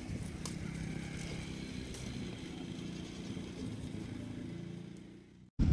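A motor engine running at a steady speed in the background, with a low, even hum; it fades away near the end and cuts off suddenly.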